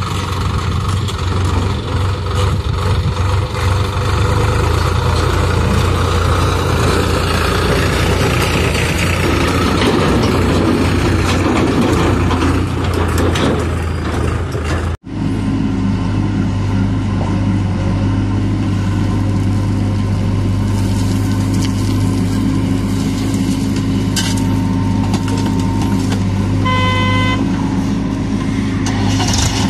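Diesel tractor engines running steadily: first a Sonalika DI 735 pulling a tipping trailer, then, after a cut about halfway through, a Mahindra 475 DI standing with a loaded trailer. A short horn beep sounds near the end.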